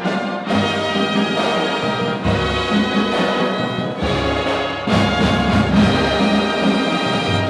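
A marching band's brass section playing full held chords: trumpets or mellophones over a deep sousaphone bass line that moves every second or two.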